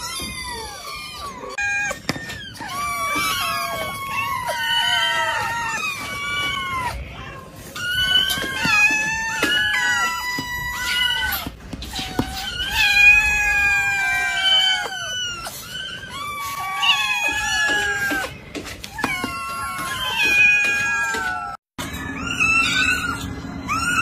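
A large group of kittens meowing all at once, many high calls overlapping and rising and falling in pitch, with a brief break near the end.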